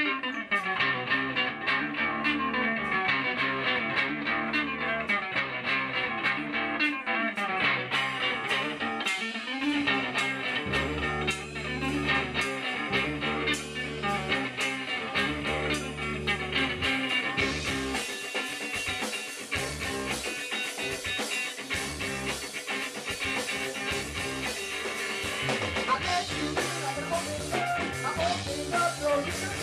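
Live rock band playing the instrumental opening of a song: electric guitar, electric bass and drum kit. The sound turns brighter about two-thirds of the way in, and the lead vocal comes in near the end.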